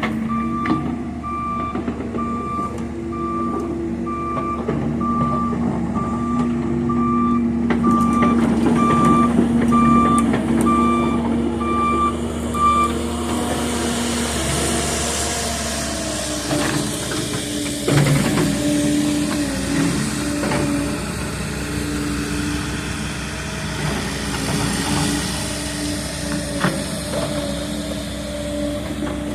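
Excavator diesel engines running, with a travel alarm beeping at an even pace, a little over one beep a second. About 13 seconds in the beeping stops. The engines carry on at a higher note, with a rising hiss and a few sharp knocks.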